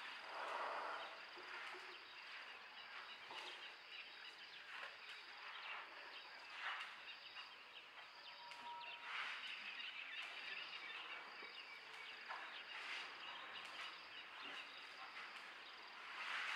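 Faint outdoor morning ambience: a steady high-pitched insect trill, with scattered short bird calls.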